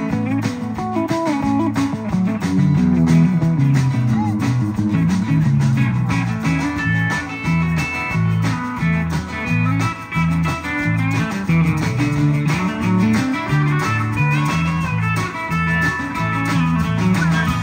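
Instrumental break of a country song: guitars playing over a stepping bass line with a steady beat, no vocals.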